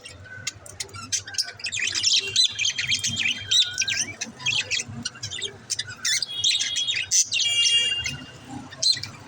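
Pet budgerigars chattering: a dense run of quick chirps and warbles, with a harsh buzzy call about seven and a half seconds in.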